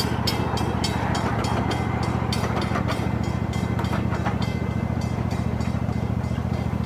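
Park ride-on train running: a steady low engine hum with regular wheel clicks over the rail joints, about three a second. The clicks fade out about four seconds in.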